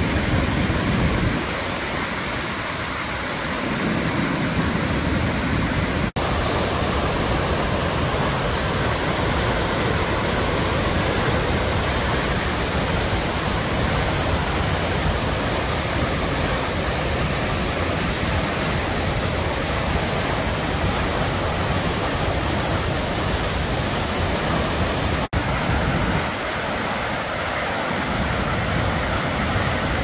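The Krčić waterfall's water plunging and crashing at close range in a loud, steady rush of noise, cutting out for an instant twice.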